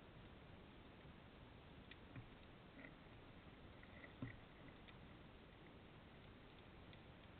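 Near silence underwater: a faint steady hiss with a few soft clicks, and a small knock about four seconds in.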